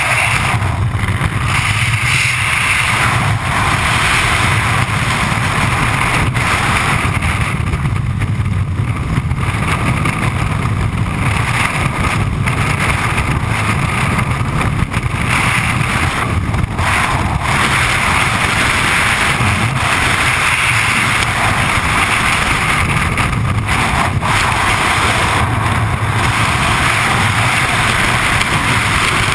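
Loud, steady rush of freefall wind buffeting a helmet-mounted camera's microphone during a skydive, its hiss thinning briefly now and then.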